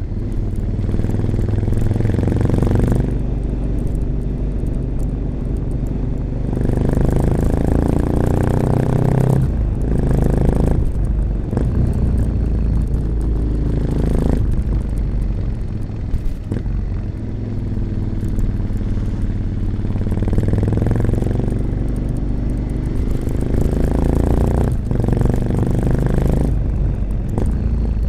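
1986 Honda XL600RM single-cylinder four-stroke engine through an aftermarket XRacing exhaust with its dB killer fitted, under way: the revs climb under throttle, then drop sharply as the throttle is closed, several times over.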